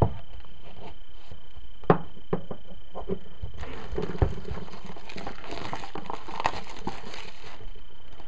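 Clear plastic shrink wrap being slit with a knife and peeled off a software box. A few sharp clicks and taps come first, then dense crinkling of the plastic for about four seconds.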